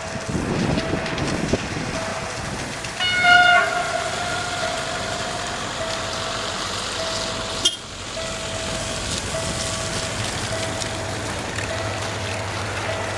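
An approaching diesel locomotive, a CFR Class 65 (GM), sounds one short horn blast about three seconds in. Its engine's low rumble grows over the last few seconds as it draws near. A regular beep repeats about once every three quarters of a second throughout, and there is a single sharp click about halfway.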